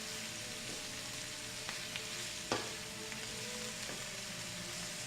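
Sliced cabbage sizzling as it stir-fries in hot coconut oil in a pan, with a few sharp clicks of the stirring utensil against the pan, the loudest about two and a half seconds in.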